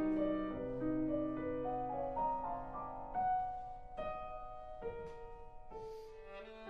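Slow, quiet instrumental music: piano notes under bowed strings, gradually fading.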